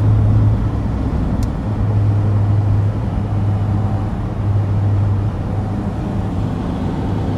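Steady road noise inside a moving car: a low hum with tyre rumble that swells and eases slightly. There is a single brief click about one and a half seconds in.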